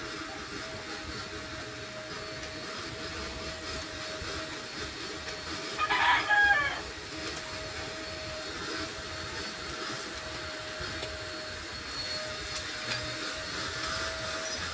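A single short bird call about six seconds in, the loudest sound here, over a steady machine hum with a constant tone.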